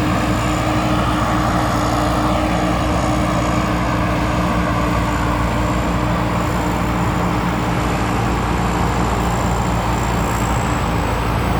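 Rice combine harvester's 260-horsepower diesel engine running steadily while harvesting, a continuous drone with a thin high whine above it.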